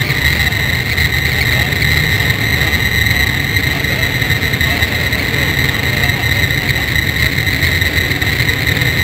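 A full field of dirt-track race cars' engines running together at parade speed: a loud, steady, low drone with a constant buzzing tone above it.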